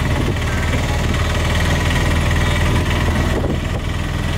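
Auto-rickshaw's small engine running steadily, a constant low hum.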